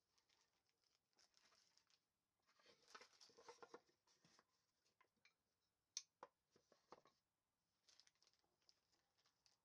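Near silence with faint rustling and a few light clicks and taps, the sharpest click about six seconds in.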